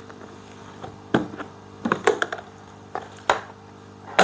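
Plastic toolbox being handled and opened: several sharp plastic clicks and knocks of its latches and lid, the loudest at the very end.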